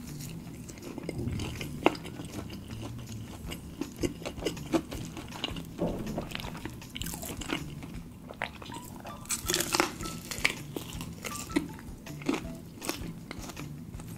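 Crisp breaded fried chicken drumstick being bitten and chewed close to the microphone. There is a run of irregular crunches: a sharp one about two seconds in and a thick cluster about two-thirds of the way through.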